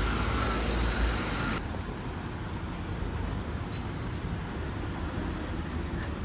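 City street traffic: a motor vehicle passing close with a low engine rumble, then, from an abrupt change about a second and a half in, a quieter steady hum of traffic.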